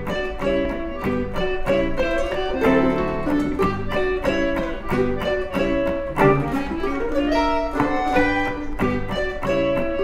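Instrumental background music: a steady rhythm of plucked string notes with a bowed string melody over it.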